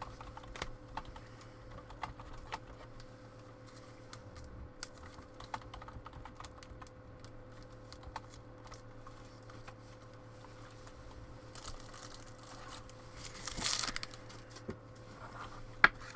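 Irregular light clicking of typing on a computer keyboard over a steady low hum, with a short rustle about three-quarters through and one sharper click near the end.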